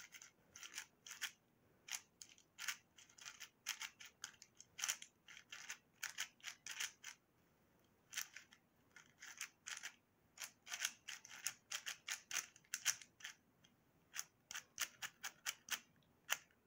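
YJ Zhilong Mini 4x4 magnetic speed cube being turned: fast, irregular runs of light plastic clicks as its layers snap into line, with a short pause about halfway through.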